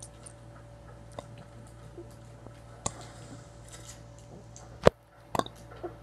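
Quiet mouth noises of a man swallowing air between burps: faint clicks and wet smacks, a sharp click near the end, then a short throaty sound just after it.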